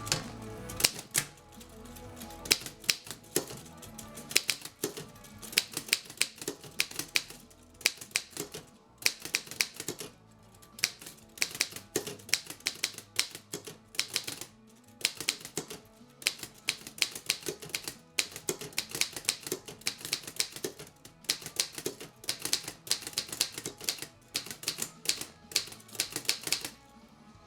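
1927 Underwood manual typewriter being typed on: fast runs of sharp key strikes, several a second, broken by short pauses.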